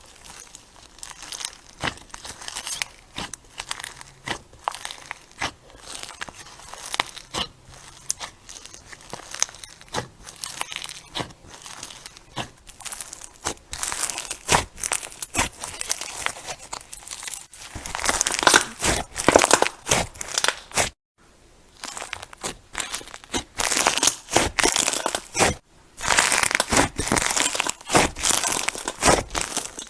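Crunchy slime being squeezed and stretched by hand, giving off dense, irregular crackling and popping. The crackling is sparser at first and grows thicker and louder after the midpoint, broken by two brief silences.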